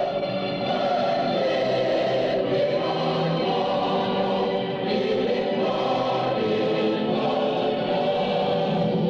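A group of people singing together in chorus, with long held notes.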